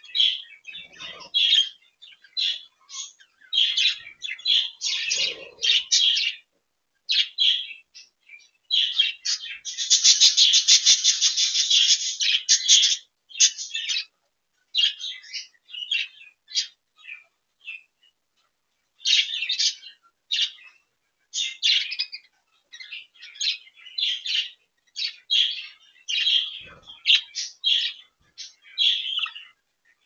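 Budgerigars chirping and chattering in short, high bursts, with a dense stretch of rapid chatter lasting a few seconds about ten seconds in.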